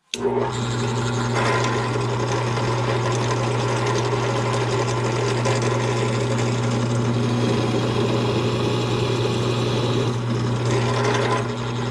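Drill fitted with an annular cutter starting up and running steadily, cutting thin leather for a new power-lift piston cup.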